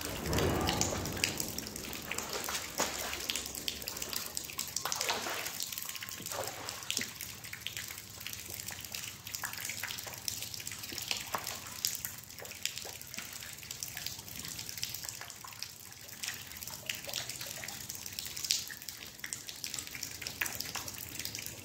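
Shallow river water splashing and dripping as a person wades through it, with a louder splash right at the start and many small drips and splashes after it.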